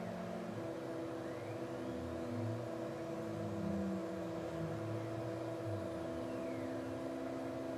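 Closed-loop stepper motors driving the ballscrew axes of a CNC-converted PM-25MV mill through a program of moves. A whine rises and falls in pitch as the axes speed up and slow down, over a steady machine hum.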